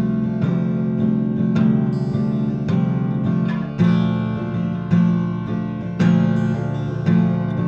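Acoustic guitar playing, with a chord or note struck about once a second and left to ring until the next.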